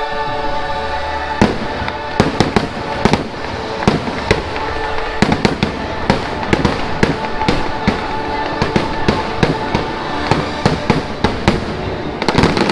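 Fireworks show with dozens of sharp bangs and cracks, starting about a second and a half in and bunching into a dense flurry near the end, over the show's music. This is typical of the closing barrage of a theme-park fireworks show.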